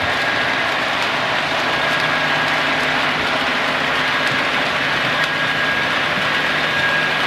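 Model railway locomotives running on the layout, with DCC sound decoders giving a steady diesel engine sound and a thin constant whine over it.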